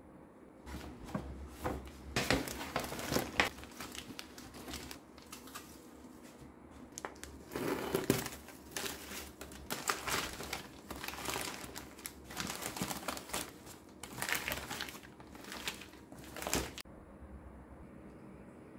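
Crinkly plastic and paper wrapping crackling and rustling in irregular bursts as hands pull it open, stopping about two seconds before the end.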